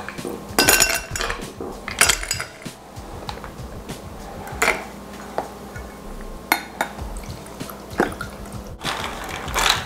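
Ice cubes clinking into a drinking glass and glasses knocking on the counter, a few separate clinks spread out, then a muddled drink poured from one glass into another over ice near the end.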